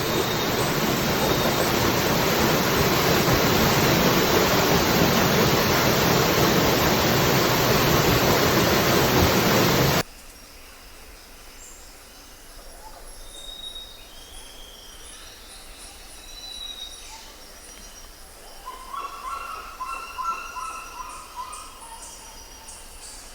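Waterfall rushing steadily, cutting off abruptly about ten seconds in. Afterwards a quieter natural background with birds calling: scattered short whistles, then a burst of chirps near the end.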